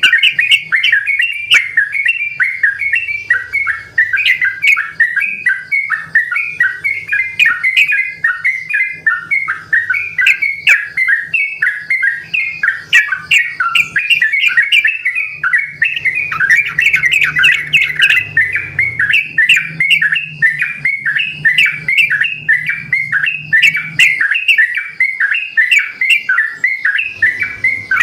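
Yellow-vented bulbuls (trucukan) in full song, several birds answering each other with fast runs of short chattering notes that go on without a break.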